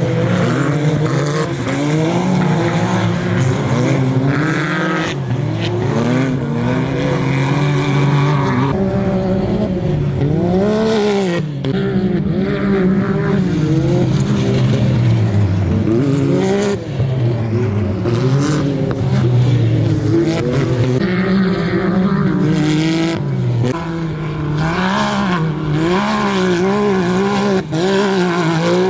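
Off-road race buggy and UTV engines revving hard, the pitch climbing and dropping again and again as the drivers work the throttle over the dirt course.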